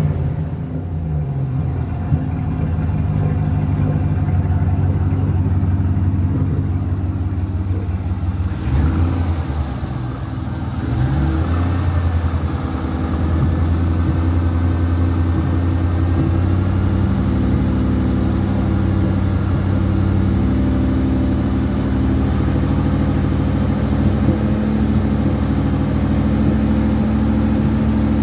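Pickup truck engine running and being revved, from a truck with a persistent misfire that the owner is trying to bring on. The note shifts about eight seconds in, then holds steady at a somewhat higher speed from about halfway.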